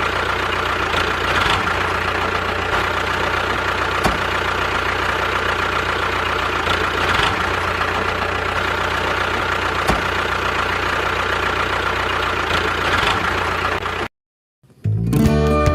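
Miniature DIY tractor and thresher machinery running with a steady mechanical hum and occasional light clicks. About fourteen seconds in it cuts off abruptly, and after a brief silence plucked-string music starts near the end.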